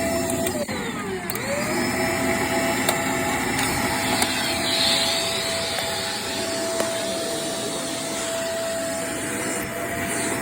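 Vacuum cleaner running on stair carpet with a steady motor whine; about a second in the pitch dips and then climbs back. A few light clicks sound over it.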